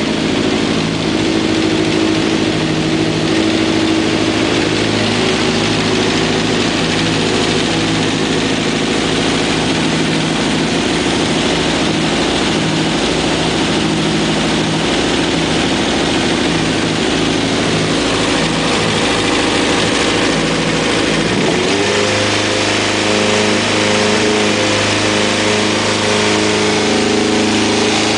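Kawasaki ZX-11's inline-four engine running steadily at idle, then rising in speed about twenty seconds in and holding there. It is making a noise that the owner calls weird.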